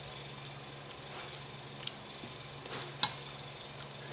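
Boiled pili nuts being picked apart by hand: a few faint clicks of shell, then one sharp crack about three seconds in, over a steady low hum.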